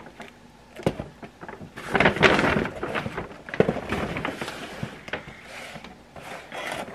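Cardboard kids'-meal boxes being handled and opened: paperboard rustling and flaps being pulled open, with a couple of sharp knocks.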